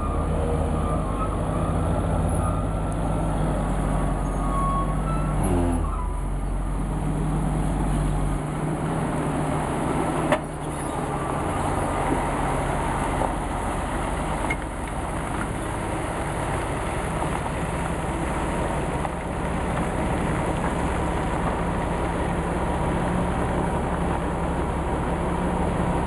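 Diesel engine of a loaded International logging truck running as it drives off. Its pitch drops about six seconds in, and a single sharp knock comes about ten seconds in.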